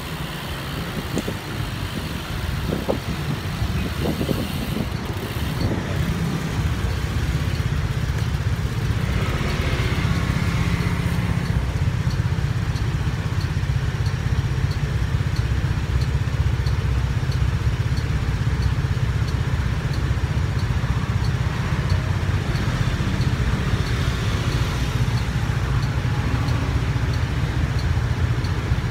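Steady low rumble of a motor vehicle engine in street traffic, building over the first few seconds and then holding, with faint ticking at about one tick a second.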